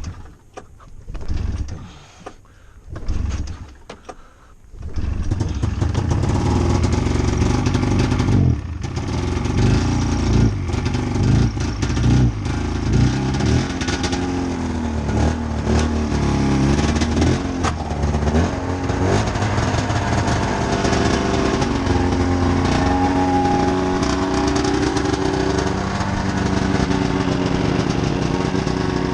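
Snowmobile engine cold-started by pull cord: a few pulls, catching about five seconds in, then running unevenly with some blips of the throttle before settling into a steadier idle. It is a cold start after a week sitting in below-freezing weather, and it took three pulls.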